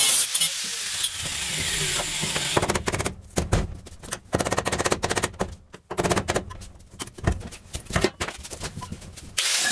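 Handheld power tool working on the truck's sheet-metal wall panels: a steady whir for the first couple of seconds, then a rapid rattling hammering in short runs, and a steady whir again near the end.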